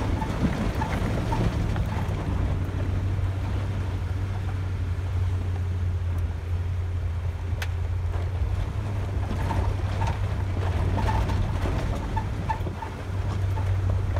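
Vehicle driving slowly over a rough, rocky dirt road: a steady low engine hum under the rumble of tyres on gravel and loose stones, with scattered small knocks and clicks, more of them toward the end.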